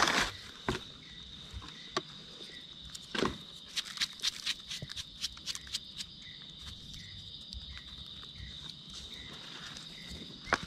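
Dry forest-floor leaf litter crunching and rustling in a run of sharp clicks in the first half, over a steady high insect drone, with faint regular chirps in the second half.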